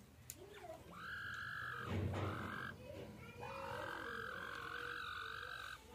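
Female grey francolin sitting on her egg gives two long drawn-out calls as a hand reaches under her, the defensive call of a brooding hen disturbed on the nest. A short low thump about two seconds in, between the calls.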